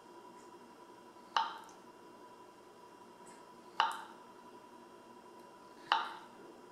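Paring knife cutting through a cooked sweet potato and tapping down onto a plastic cutting board three times, about two seconds apart, each a sharp knock that dies away quickly.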